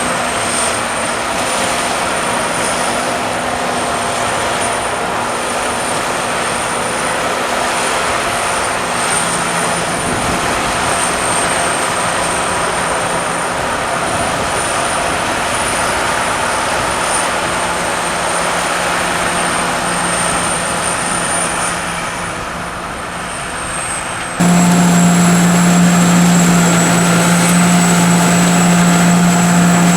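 Sakpattana KM-D 4.1 corn combine harvester running: a steady machine drone with a thin high whine. About 24 seconds in the sound switches suddenly to a louder, lower steady engine note.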